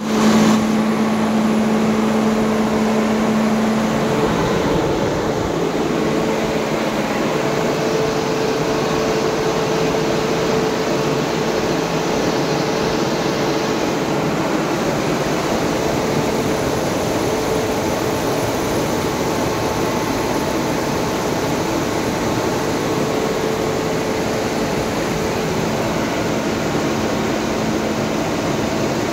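Kirloskar 6R1080NA six-cylinder diesel engine of a fire-fighting pump set, running steadily and loudly, with an even hum that holds one pitch.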